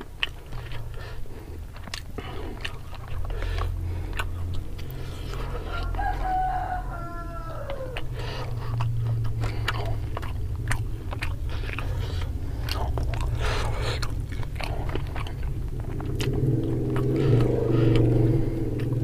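Close-miked eating sounds: fingers picking apart and squelching spicy fried tilapia and rice, with small wet clicks and chewing. A rooster crows in the background about six seconds in, and a louder low hum rises near the end.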